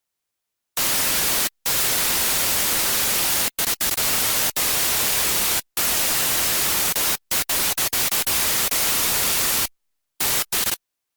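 Digital glitch sound effect: loud white-noise static that starts about a second in and stutters, cutting out abruptly to dead silence again and again, then ends in two short bursts.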